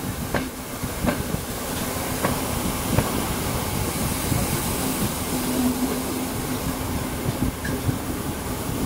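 Steam-hauled special train of passenger coaches running along the line, heard from a coach window: a steady rolling rush of wheels on rail, with a few sharp rail-joint clicks in the first three seconds.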